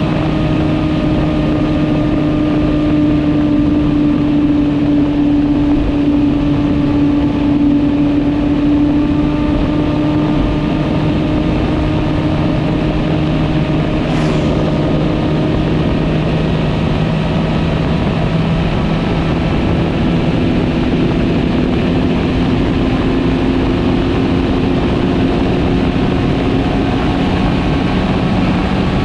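Sport motorcycle engine running at a steady highway cruise, a continuous drone that drifts slightly in pitch as the speed changes, under steady wind and road rush.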